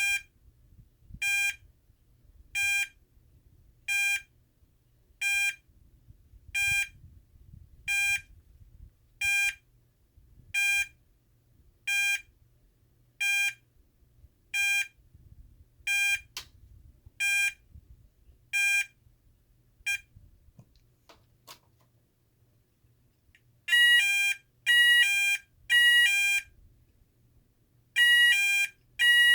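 Federal Signal SLM800R electronic signal sounder cycling through its selectable tones. First it gives short, evenly spaced beeps of one steady pitch, about one every 1.3 seconds. These stop about two-thirds of the way in, and after a pause of a few seconds a louder tone starts: bursts that alternate between two pitches, in groups of three.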